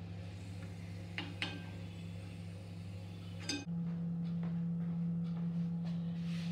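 A slotted metal spoon clinks a few times against a steel kadhai as crisp French fries are lifted from the hot oil, over a faint hiss of frying and a steady low hum. Just past halfway the sound changes to a louder steady hum.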